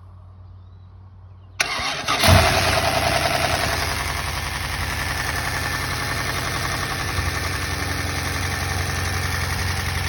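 Buick 425 Nailhead V8 starting about a second and a half in: a short crank, then it catches with a quick rev and settles into a steady idle. A fast, loud valvetrain clatter runs through the idle, the tapping of hydraulic lifters set to 0.020 in of preload.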